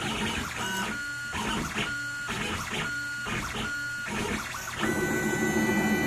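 Stepper motors of a DIY pen-plotter CNC whining through a run of short, quick moves, about two a second. Near the end they go into one longer, steady, slightly louder move at a higher pitch.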